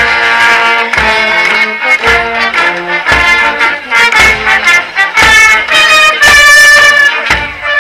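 Brass band playing a march tune, with cornets, trombones and euphoniums over a bass drum beating about once a second.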